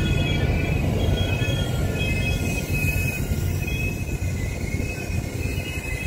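PESA 730ML double-deck diesel multiple unit rolling along the platform, with a steady low rumble and several thin, high squealing tones from the wheels that come and go.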